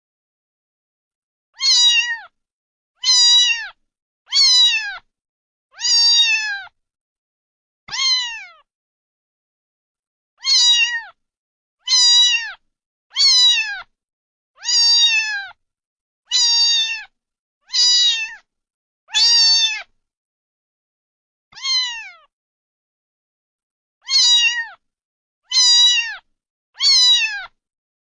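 A domestic cat meowing over and over: about sixteen short, high meows, each falling in pitch, in runs of roughly one per second and a half broken by a few longer pauses, with dead silence between calls.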